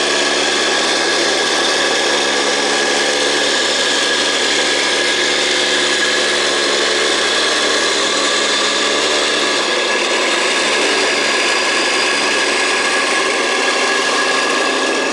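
A 1/14-scale all-metal hydraulic RC construction machine, likely the vibrating roller packing down asphalt patch, running steadily: a motor and hydraulic-pump whine over a grinding noise. The lowest hum drops away about ten seconds in.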